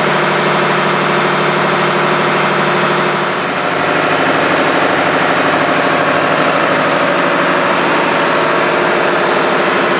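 A ship's engine running steadily and loudly: a dense mechanical drone with a steady hum, dipping slightly about three and a half seconds in.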